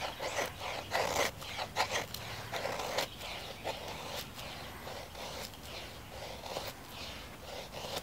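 A knife blade shaving thin curls off a wooden stick to make a feather stick: a run of short scraping strokes, roughly two a second, louder over the first three seconds and then lighter.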